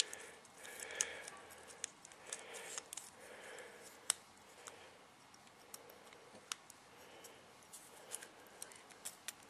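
Faint, irregular small metal clicks and taps as the float and its hinge pin are worked back into a small pit-bike carburetor body by hand.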